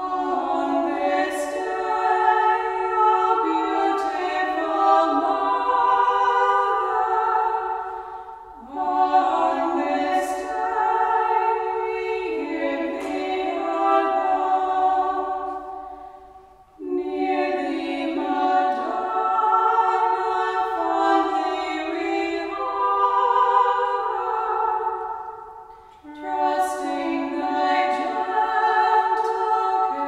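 Women's voices singing unaccompanied, in long held phrases of about eight to nine seconds each, with short pauses for breath between them.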